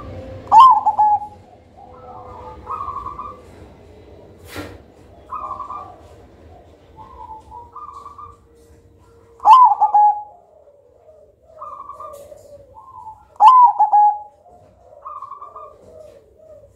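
Zebra dove (perkutut) cooing. Three loud phrases, each opening with a sharp note that slides down, come just after the start, about nine and a half seconds in and about thirteen and a half seconds in. Softer, shorter coos fill the gaps between them, and a single sharp click comes about four and a half seconds in.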